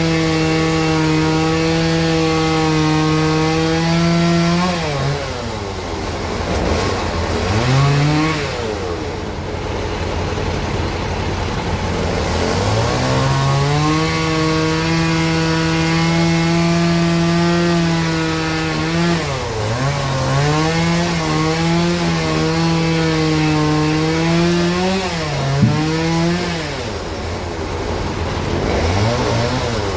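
Sawmill bandsaw running through a large log: a loud, steady pitched drone that sags in pitch and recovers several times as the drive takes load, about five seconds in, again near the middle, and a few seconds before the end.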